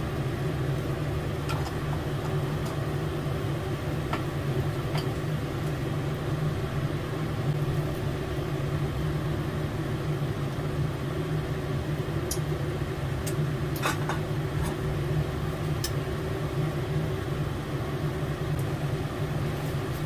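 A steady low rumble, with a few faint light clicks scattered through it, such as a spatula tapping a frying pan while a cream sauce is stirred.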